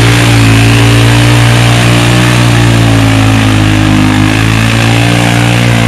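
Arctic Cat 500 4x4 ATV's single-cylinder four-stroke engine pulling hard through deep mud and water, its revs sagging in the middle and picking back up, with the tires churning and splashing mud.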